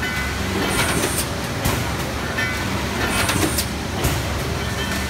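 TTF-520AF PET thermoforming machine running in production, a steady low machine drone with a repeating cycle: about every two and a half seconds a short high hiss and a few mechanical clicks, twice.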